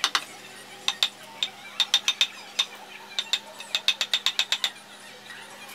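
Wood-carving chisel being tapped with a wooden mallet into teak: a run of sharp, separate taps, irregular at first and quicker near the middle, that stop shortly before the end.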